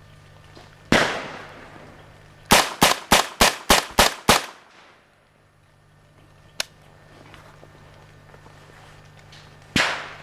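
Rifle gunfire: a single shot with a fading echo, then a quick string of seven shots at about four a second, a lone sharp click a couple of seconds later, and one more shot near the end.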